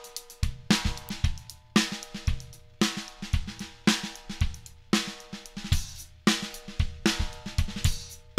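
A drum kit played in a steady groove that features a 7x14 maple and Douglas fir stave snare drum, with kick drum, hi-hat and cymbals. Loud accents fall about once a second, with quicker strokes between them, and a ringing tone carries on between the hits.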